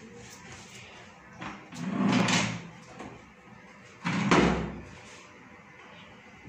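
Wardrobe doors being pushed shut by hand: a sliding rumble about two seconds in, then a thump as a door closes about four seconds in.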